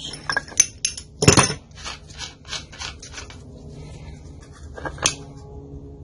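Metal clinks and knocks of a flywheel puller and hand tools being handled at a small Briggs & Stratton lawnmower engine. There are a few sharp clinks, then a louder clank about a second in, a quick run of light clicks, and one more clink near the end.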